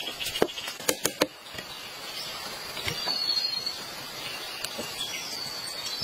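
A few sharp clacks of bamboo slats and tools being handled in the first second or so. After that, a steady rural background with a bird giving a short curving call twice, a couple of seconds apart.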